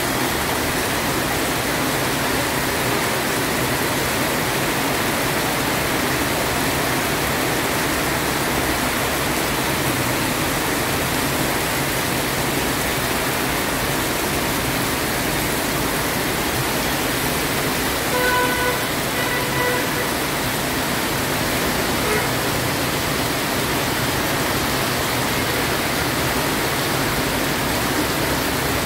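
Heavy rain pouring steadily onto a street and pavement. About two-thirds of the way through, a vehicle horn toots twice briefly.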